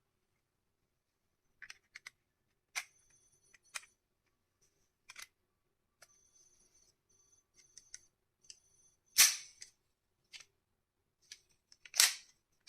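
Plastic shell-ejection toy pistol being handled: scattered light clicks and small rattles, with two louder sharp clacks about nine and twelve seconds in.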